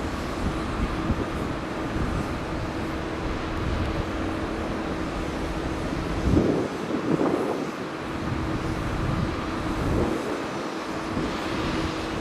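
Steady road traffic and vehicle noise with a constant low hum, swelling louder for a moment a little past halfway and again briefly around ten seconds in.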